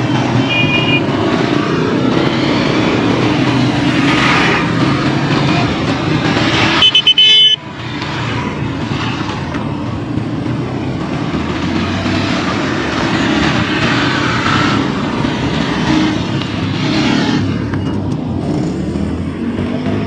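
Motorcycles riding past one after another, their engines rising and fading as each goes by. Short horn toots sound right at the start, and one loud horn blast comes about seven seconds in.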